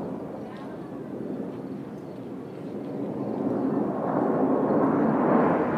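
Jet noise from a formation of Blue Angels F/A-18 Hornets flying overhead, a rushing sound that grows louder over the last couple of seconds.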